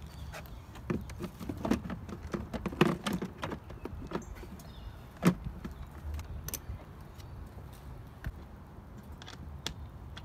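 BMW 135i's plastic cabin air filter cover being set back in place and pressed down by hand: a run of plastic clacks and knocks, the loudest about five seconds in. Wind rumbles on the microphone throughout.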